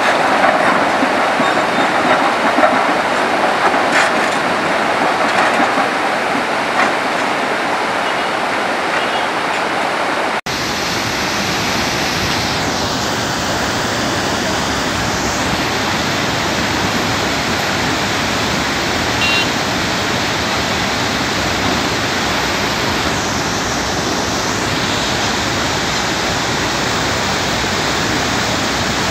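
Flooded river rushing over boulders, a loud steady torrent of muddy water. About ten seconds in the sound changes abruptly and becomes deeper and fuller.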